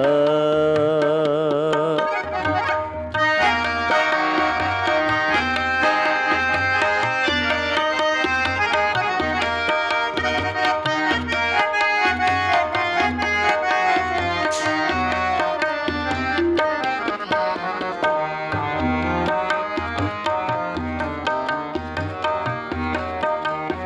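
Sikh kirtan: a sung line ends about two seconds in, then an instrumental interlude follows, with harmonium melody over a steady tabla beat.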